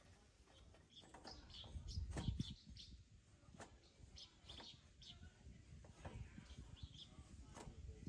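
Small birds chirping repeatedly, with a few sharp knocks of a blade cutting kindling and a louder low thump about two seconds in.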